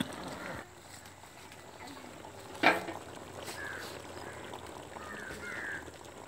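Quiet outdoor background with a few short bird calls, and one sharp knock about two and a half seconds in.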